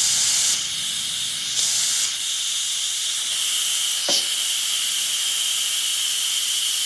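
Instant Pot Duo Plus pressure cooker venting steam through its release valve in a quick release of the pressure: a steady, loud hiss that dips briefly a couple of times early on. A steady high whistling tone joins it about three seconds in, with a single click about four seconds in.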